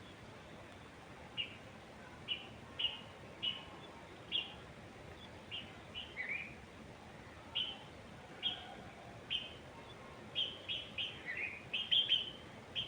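Birds chirping: short, high chirps repeat every second or so, with a couple of downward-slurred notes and a quicker run of chirps near the end, over a faint steady background hiss.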